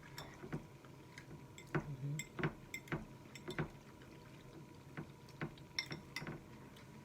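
Close-miked eating of spaghetti with meatballs: irregular wet mouth clicks and smacks of chewing, about a dozen in all, busiest in the first half.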